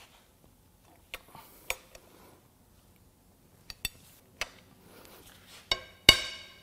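Breaker bar and socket on the crankshaft bolt of a Toyota 2AR-FE 2.5 L four-cylinder clicking and clinking as the bar is levered to turn the engine over by hand, with a loud ringing metal clang about six seconds in. The engine will not turn over.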